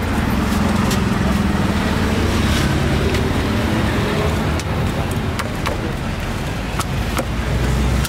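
A motor vehicle engine running close by over street traffic noise, with scattered sharp clicks and knocks throughout.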